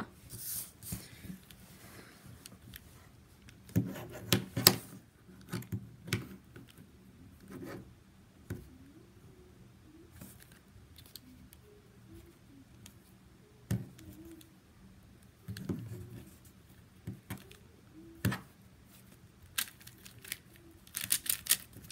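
A 4x4 Rubik's cube being turned by hand: irregular plastic clicks and scrapes as its layers are twisted, in short clusters with pauses between.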